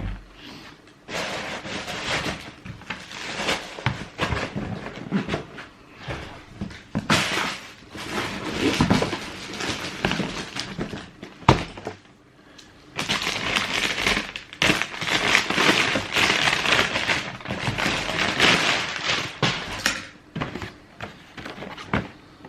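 Cardboard shoe box and paper wrapping being handled: irregular rustling and crinkling, with a sharp click about halfway through.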